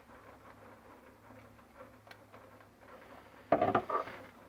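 Light handling noise and small clicks, then a quick cluster of louder plastic clicks and knocks about three and a half seconds in, as a cordless vacuum cleaner's battery pack is fitted back into its plastic housing.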